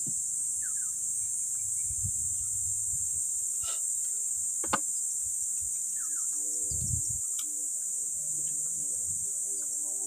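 A steady, high-pitched chorus of insects buzzing continuously. Two sharp clicks come about a second apart near the middle.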